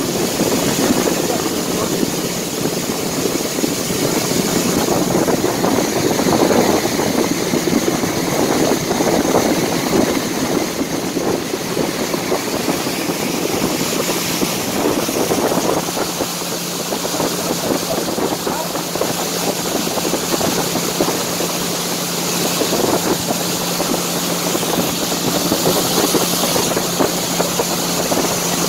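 Small river boat's motor running steadily while under way, a constant hum with no change in speed.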